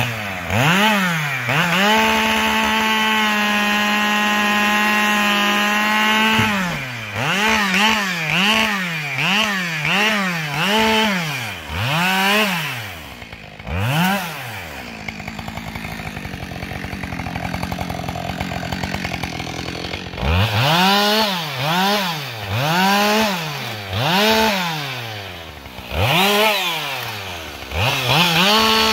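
Two-stroke chainsaw revving up and down in short bursts about once a second, with a few seconds held at high speed. Around the middle it drops to idle for several seconds, then the quick revs resume.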